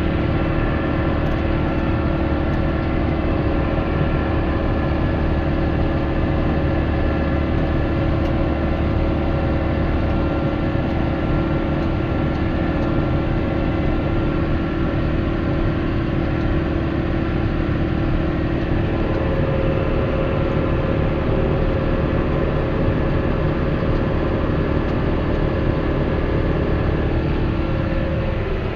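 Tractor engine running steadily while towing a loaded muck spreader, heard from inside the cab, with a steady hum and whine that hold at an even pitch throughout.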